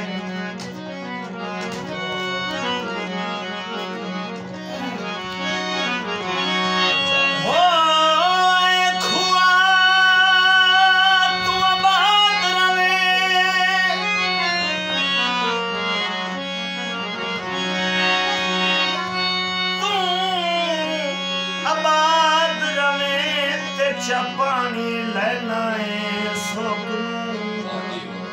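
Punjabi folk music played between sung verses. A steady low drone runs under a wavering melody with long held notes, with hand drums beneath. The melody is loudest around the middle of the passage.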